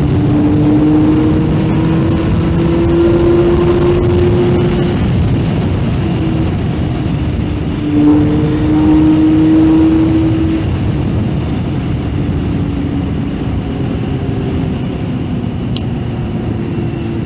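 Yamaha Fazer 600's inline-four engine pulling on the road, its pitch climbing steadily, then dropping and climbing again about eight seconds in as the rider shifts up a gear. It eases off and settles lower in the second half, with steady wind rush over the microphone throughout.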